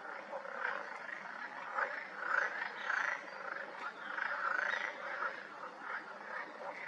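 A chorus of frogs croaking, many calls overlapping without a break, with a few faint high whistles above.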